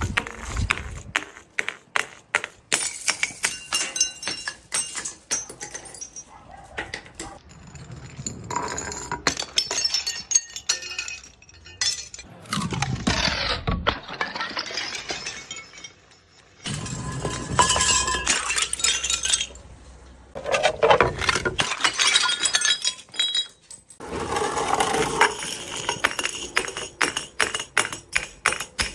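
Glass bottles shattering, with many sharp cracks and the clinking and rattling of broken glass shards, in several loud bursts of smashing with short pauses between.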